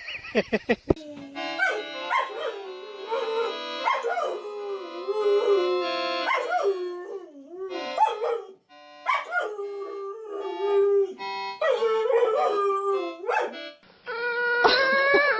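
German shepherd howling: a series of long, wavering howls that slide up and down in pitch, with a louder held howl near the end.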